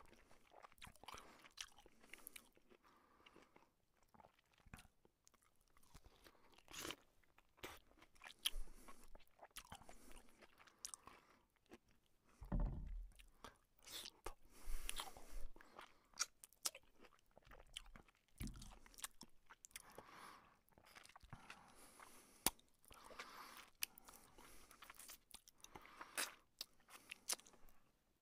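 Faint, close-miked chewing and crunching of a mouthful of rice and fried fish eaten by hand, with irregular crisp clicks and a few louder soft thuds.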